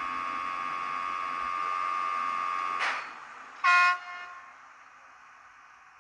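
Piko BR101 model locomotive's sound decoder playing through its small speaker: a steady electric-locomotive hum that stops just before the halfway point with a short hiss of air, then one short, loud horn blast, after which only a faint hum remains.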